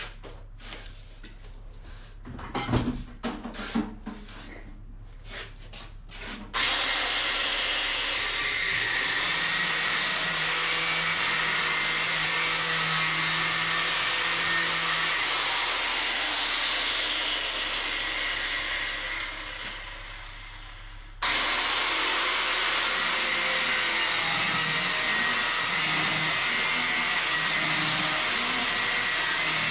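A few seconds of clattering as metal is handled, then an angle grinder cutting metal: it runs for about fourteen seconds, winds down, and starts again about two-thirds of the way in, cutting to the end.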